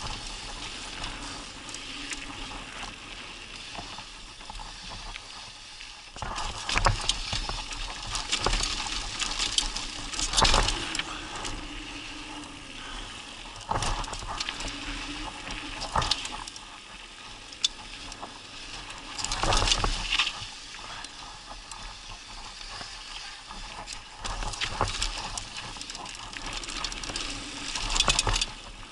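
Mountain bike riding down a dirt singletrack: a steady rush of tyres rolling on dirt, broken several times by loud clattering as the bike rattles over bumps.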